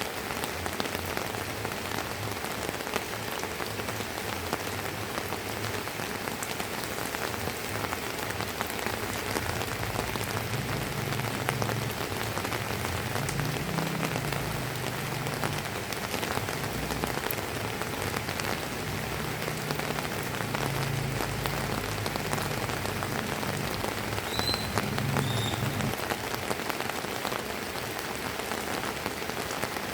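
Steady drizzling rain pattering on a terrace, a dense even patter of drops. A low rumble comes and goes through the middle, and two short high chirps sound near the end.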